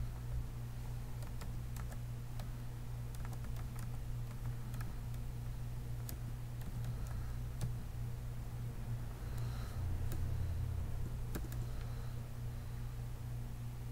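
Computer keyboard being typed on: slow, irregular single keystrokes, as text is typed and then deleted, over a steady low hum.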